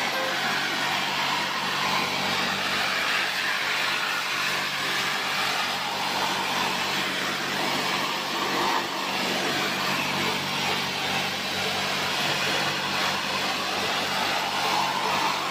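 High-pressure washer running steadily, its water jet hissing without a break over a low, constant motor hum.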